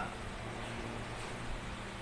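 Steady low hum over an even hiss, with a faint tick about one and a half seconds in.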